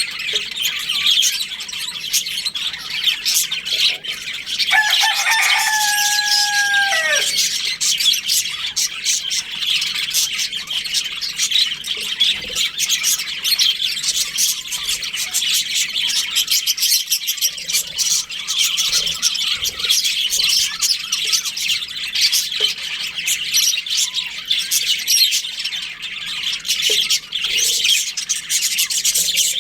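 A budgerigar colony chattering and chirping without a break, a dense mass of quick high warbles. About five seconds in, a rooster crows once: a lower call, held for about two seconds and then dropping away at the end.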